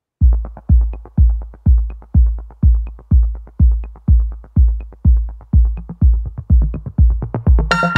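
Electronic dance music with a steady kick drum, about two beats a second, and short ticks between the beats; a bright synth chord comes in near the end.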